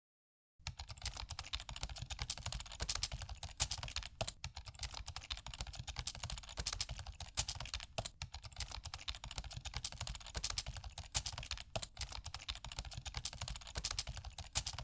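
Sound effect of rapid typing on a computer keyboard: a continuous stream of key clicks that starts about half a second in.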